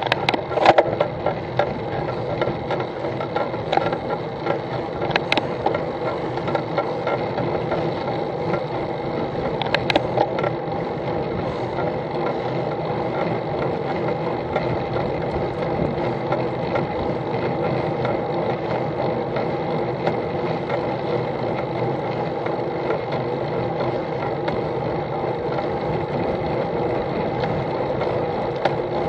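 Steady mechanical whirr and rattle of a bicycle rolling along a tarmac road, with a few sharp clicks in the first ten seconds.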